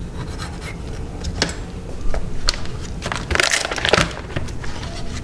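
Handling of trimmed beef short ribs and their scraps on a cutting board: a few sharp taps and knocks, and a brief crinkling rustle a little past the middle, over a low steady hum.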